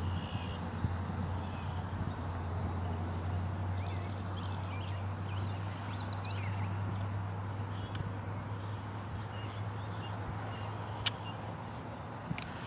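Several birds chirping and trilling over a steady low hum, with one sharp click near the end.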